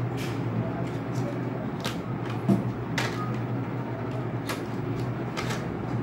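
Cardboard wax crayon boxes being handled: a handful of short scrapes and taps, with one louder low knock about two and a half seconds in, over a steady low hum.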